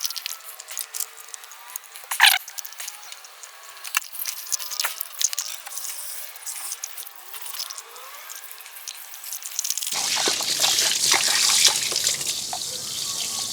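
Water dripping and trickling, then about ten seconds in running water starts, splashing with a steady hiss.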